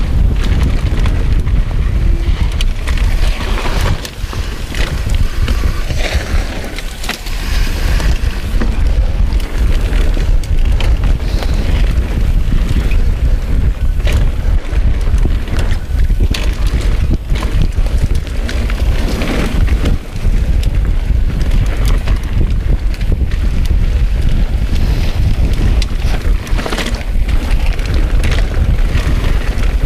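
Wind buffeting the microphone of a chest-mounted camera on a fast mountain bike descent, a heavy low rumble, with the tyres rolling over a dirt trail and frequent sharp knocks and rattles from the bike over bumps.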